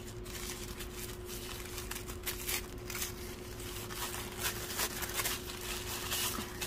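Tissue paper rustling and crinkling in short, scattered rustles as it is unwrapped by hand, over a faint steady hum.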